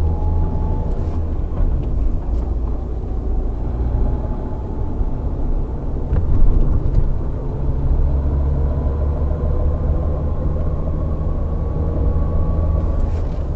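Lada Granta driving in gear under light throttle, heard from inside the cabin: steady engine and road rumble with faint short knocks. This is the cyclic knock that comes on in 2nd to 5th gear under light load and goes away when the throttle is released or the steering wheel is turned slightly.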